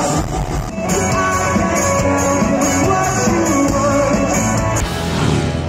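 Live rock band playing with singing, heard from the crowd. The sound shifts abruptly about a second in and again near the end, where separate concert clips are cut together.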